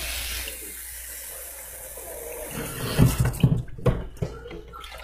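Kitchen tap running water into a sink over tofu and vegetables in a colander, with several knocks and clatters in the second half.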